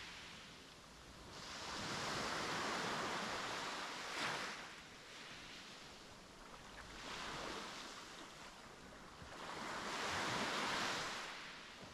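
Sea waves breaking and washing up a beach. The surf swells and fades in slow surges a few seconds apart, with one short, sharper splash about four seconds in.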